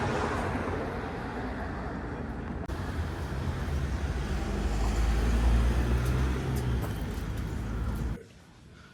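A road vehicle's engine running past, a low drone that grows louder to a peak a little past the middle, then cuts off abruptly about eight seconds in.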